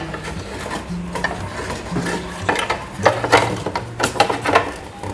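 Irregular clicks and metallic clatter of a steel desktop PC case being handled as its cover is closed, with a cluster of sharper knocks in the second half.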